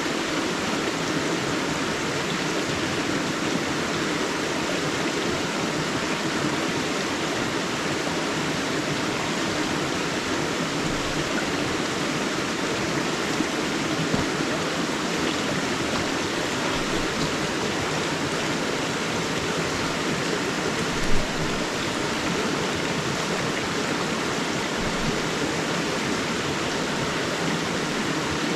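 River water rushing steadily over its bed, an even rushing noise without pause. There is one brief louder sound about three-quarters of the way through.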